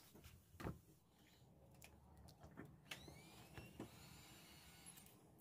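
Near silence with a few soft knocks, the loudest just under a second in: a wicker basket of vegetables being set down on a wooden tabletop.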